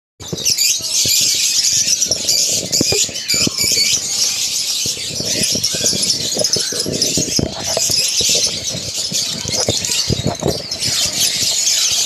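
Many caged birds chirping and squeaking at once in a dense, shrill, unbroken chorus, with scattered knocks and clatter beneath.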